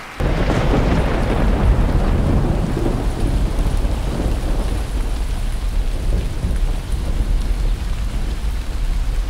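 A thunderclap just after the start that rolls away over the next few seconds, over steady rain with a low rumble underneath.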